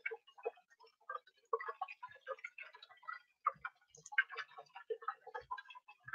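Battered cod pieces deep-frying in a pan of hot oil, crackling with many small irregular pops.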